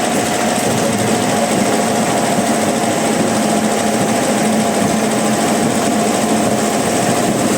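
A motor-driven machine running steadily, with a constant hum.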